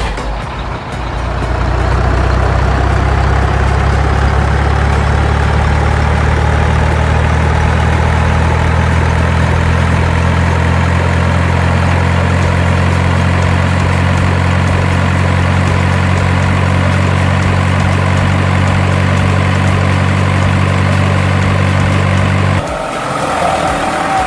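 Heavy truck engine idling sound, steady and low. It cuts off abruptly near the end and a lighter engine sound takes over.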